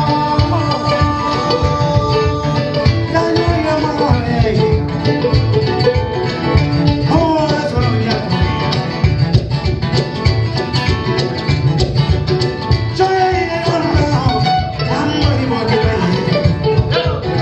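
Live acoustic string-band music: kamale ngoni and guitar plucking a fast, busy rhythm, with a long held melody line sliding up and down over it.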